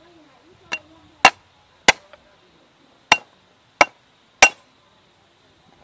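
Flat of a cleaver smashing garlic cloves against a wooden chopping board: six sharp knocks, three in quick succession, a pause of about a second, then three more.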